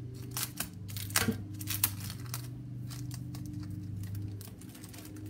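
Sheets of craft paper being handled and shifted on a desk: a few sharp clicks and taps in the first two seconds, then a steady low hum.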